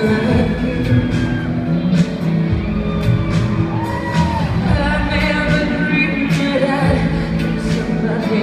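Live band with a female lead singer performing a slow song in an arena, recorded from the audience so the hall's echo is heard. The sound is steady and loud, with a sung note that swoops up and back down about halfway through.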